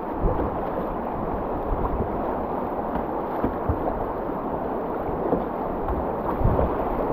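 Whitewater river rushing and splashing steadily around a plastic kayak running a rapid, with the irregular splashes of paddle strokes.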